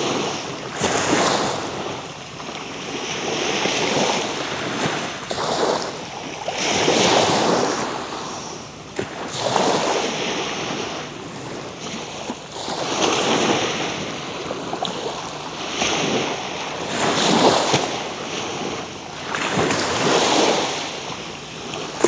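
Small waves breaking and washing up a sandy shore, a surge of surf swelling and fading about every three seconds.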